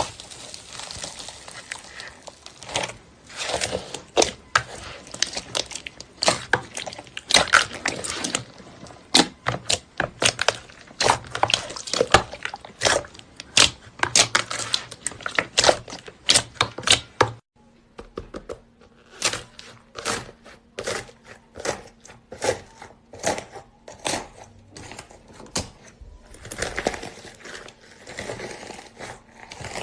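Slime being squeezed, stretched and pressed by hand, giving a dense run of sharp wet pops and crackling clicks. The sound changes at a cut a little past halfway, where the pops become sparser over a faint steady hum.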